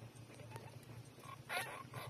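Newborn puppies squeaking while nursing, with one louder, high squeak about one and a half seconds in.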